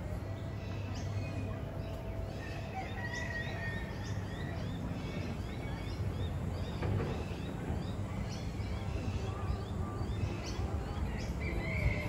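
Wild birds chirping and calling in many short, quick notes, some falling sharply in pitch, over a steady low background rumble.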